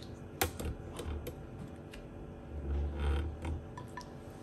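Scattered light clicks and knocks from fried gram-flour vadas being handled off a plate and dropped into a bowl of yogurt, with a dull low thud-like rumble about three seconds in.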